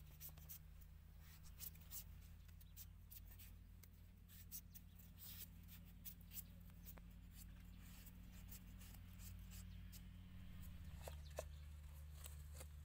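Large kitchen knife shaving the skin off a green papaya: a run of faint, short scrapes, over a steady low hum. Near the end a sharper tap as the blade meets a wooden chopping board.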